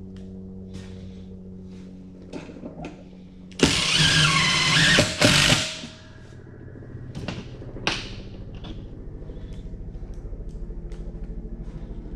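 Cordless drill driving screws into the top of a preheater housing, running in one burst about three and a half seconds in and a second, shorter one just after five seconds. Before and after, a low steady hum with light clicks of handling.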